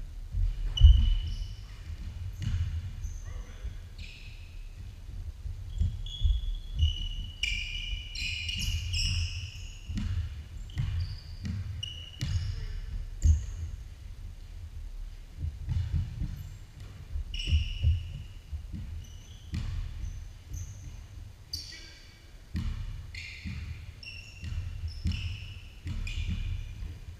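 A basketball being dribbled on a hardwood gym floor, with repeated thuds, mixed with short high squeaks of sneakers on the floor, echoing in a large gym.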